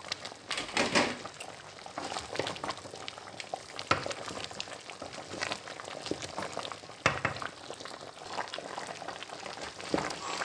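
A pot of banga (palm-nut) soup with meat and fish boiling hard, a steady bubbling and crackling, with a few louder knocks spread through it.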